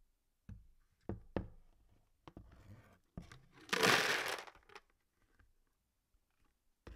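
A few knocks as the stainless ultrasonic cleaner tank is handled, then, about four seconds in, a dense rattle of a pile of small plastic mechanical keyboard switches being tipped out of the tank into a plastic basin, followed by a few light ticks as they settle.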